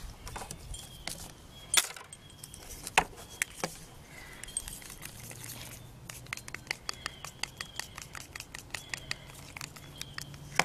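Wooden craft stick stirring acrylic pouring paint in a small plastic cup, the stick clicking against the cup's sides: a few sharp clicks, then quicker clicking through the second half.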